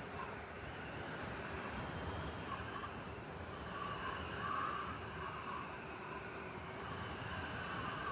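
Blizzard ambience: a steady rushing of wind-driven snow, with a higher whistling note that swells and fades, strongest about midway.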